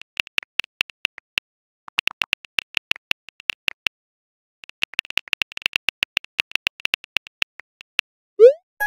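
Phone keyboard key clicks as a text message is typed, in quick runs with two short pauses. Near the end comes a short rising whoosh, the message being sent, and a chime starts just as it ends.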